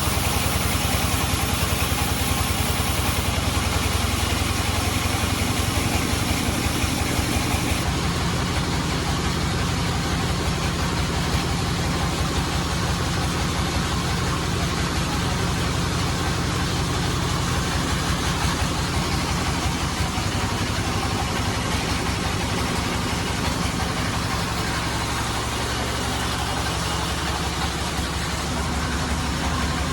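Band-saw sawmill machinery running steadily, with a low engine drone.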